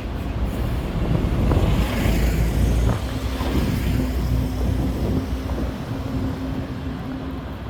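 City street traffic: a vehicle passes close with a swelling rush of tyre and engine noise that peaks about two seconds in, over a low rumble, with a steady low engine hum from about three seconds in.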